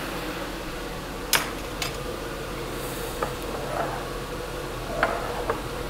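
Steady sizzle of chopped onions and bell peppers frying in a cast-iron skillet, with a few light knocks and clinks of kitchen utensils, the sharpest a little over a second in.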